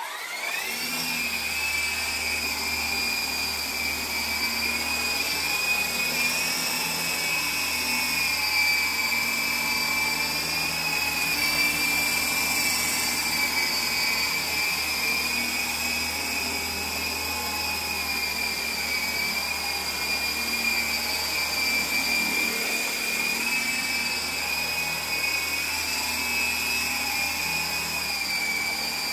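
MJX T-10 toy RC helicopter's small electric motors and coaxial rotors spinning up with a quickly rising whine, then a steady high-pitched whine in flight that wavers slightly in pitch.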